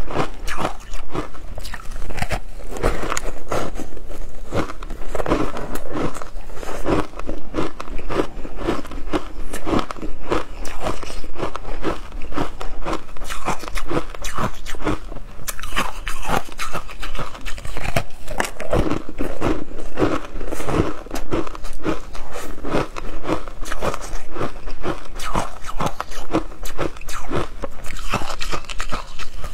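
Ice blocks coated in matcha powder being bitten and chewed: continuous loud crunching, a rapid run of sharp cracks with no pauses.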